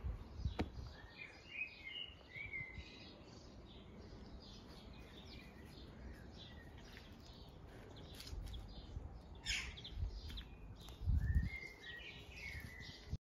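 Garden birdsong: short chirping phrases in the first few seconds and again near the end, over steady outdoor background noise. Brief low rumbles on the microphone come and go, the loudest about eleven seconds in.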